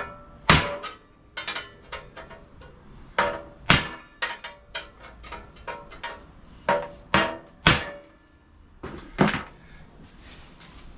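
Hammer blows on a steel sheet-metal panel as a lip is shaped into it: irregular strikes, some heavy and some light, each with a short metallic ring, thinning out to light taps near the end.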